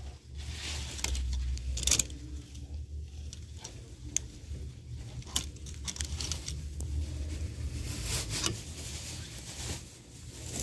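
Plastic and metal clothes hangers clicking and scraping along a clothing rack as garments are flipped through, in scattered sharp clicks over a steady low rumble from the handheld phone.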